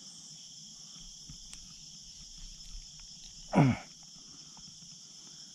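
Insects chorusing steadily at a high pitch, with a few faint clicks. About three and a half seconds in comes one short, loud, voice-like call that slides down in pitch.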